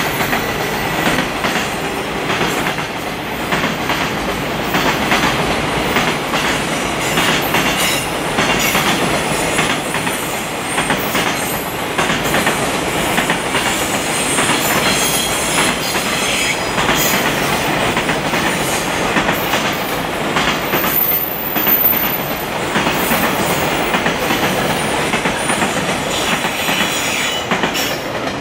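Container wagons of a long freight train rolling past in a steady stream, wheels clattering over the rail joints without letup.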